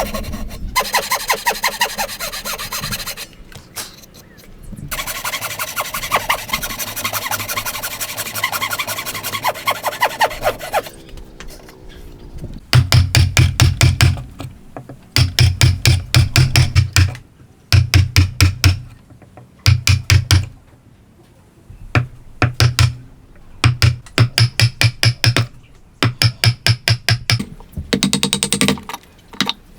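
Hand tools working wood: long runs of fast, even rasping strokes, then, from about halfway, short bursts of rapid, heavier strokes with brief pauses between them.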